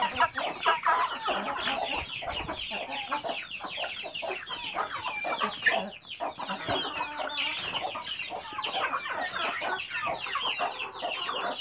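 Flock of chickens clucking and calling, many short calls overlapping without a break.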